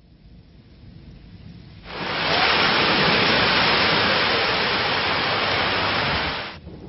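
A giant tipping bucket on a water-park play tower dumping its load: a heavy, even rush of falling, splashing water that starts suddenly about two seconds in and cuts off suddenly near the end. A low rumble comes before it.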